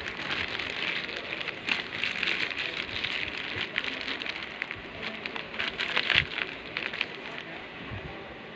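Crinkling and rustling of plastic and paper packaging being handled, a dense crackle with scattered sharp clicks. It is loudest about six seconds in and dies down after about seven seconds.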